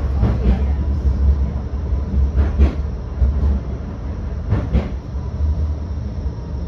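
Blackpool tram running along the line, a steady low rumble with a few sharp knocks from the wheels on the track.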